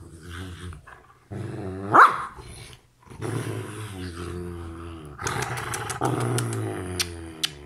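A Belgian Malinois grumbling and whining in long, wavering growl-moans, with one loud rising whine about two seconds in: playful attention-seeking noises, not aggression. From about five seconds on, short kissing smacks sound over the grumbling.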